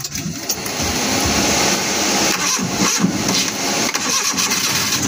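Suzuki F6A three-cylinder engine being cranked on its starter without catching: the no-start fault being troubleshot.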